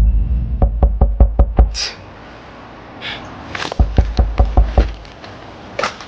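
Two quick runs of hard knocks, about seven in each: the first comes just after the start and the second about halfway through.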